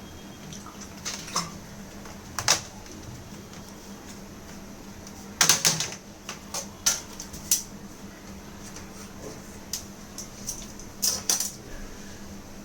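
Scattered sharp clicks and taps of hard plastic and small metal parts being handled as a laptop is taken apart, with the loudest cluster about five and a half seconds in and another near the end, over a steady low hum.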